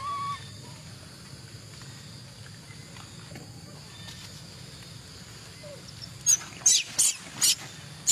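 Macaque monkeys calling: a short squeak at the very start, then near the end five short, shrill screeches about half a second apart, the last one falling in pitch.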